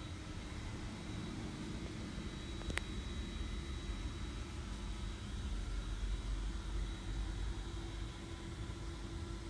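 Steady low mechanical rumble with a faint constant hum, and a single sharp click about three seconds in.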